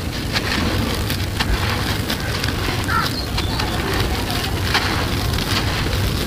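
Hands crushing a ball of dry, gritty sand-and-cement mix: a run of small sharp crackles as it breaks up, with loose grains and crumbs falling back onto the sand.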